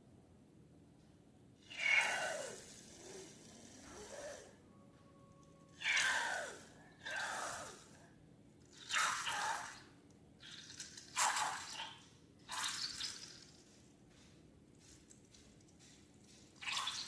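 Wet squelching and pouring of liquid slime ingredients squeezed out of balloons, in about eight short bursts, several sliding down in pitch.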